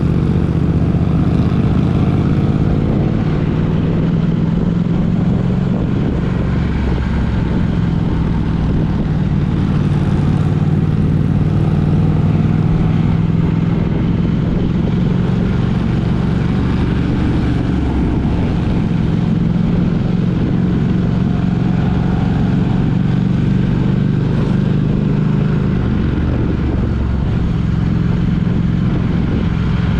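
A road vehicle's engine running steadily while driving, a continuous low hum that drifts slightly in pitch, with road noise.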